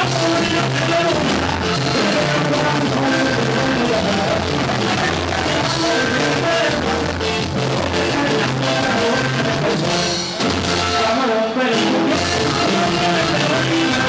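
Live regional Mexican band music: a man sings into a microphone over accordion and guitar, with a steady bass line underneath.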